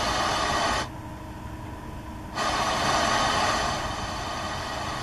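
FM radio static hissing from the car speakers of a Pioneer MVH-150UI head unit while its tuner searches for a station. The hiss cuts out abruptly about a second in, comes back about a second and a half later, and drops somewhat near the end.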